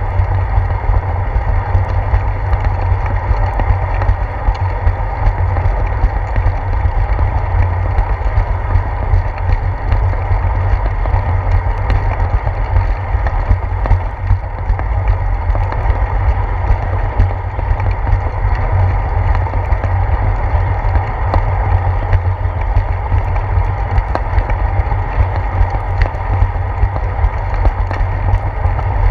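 Wind and road vibration on a handlebar-mounted GoPro Hero 4 while a bicycle rides along a wet concrete path: a loud, steady low rumble with scattered faint clicks.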